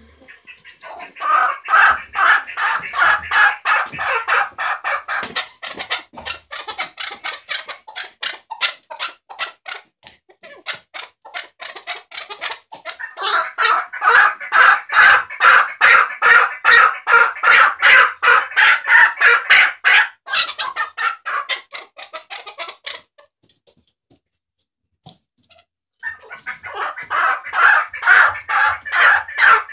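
Caged chukar partridge calling: a fast run of repeated sharp clucking notes, coming in three long bouts with short pauses between them.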